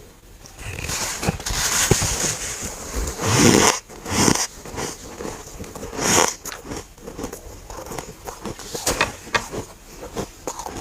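Freezer frost being bitten and chewed close to the microphone: a few loud crunching bites, the loudest about three and a half and six seconds in, then a run of short crackling chews.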